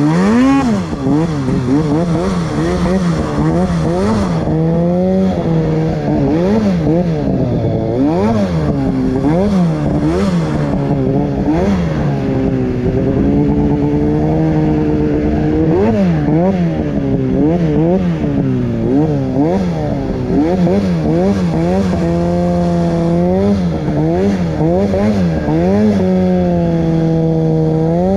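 Two-stroke mountain snowmobile engine, heard from the rider's seat, revving up and down over and over while riding through powder. It rises sharply right at the start and holds steady at times for a second or two between throttle blips.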